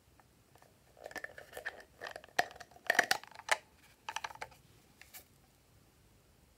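Plastic flip-lid drinking bottle being handled and opened: a run of sharp plastic clicks and crackles, loudest about halfway, then a rustle as the shredded filling inside is tipped out into a hand.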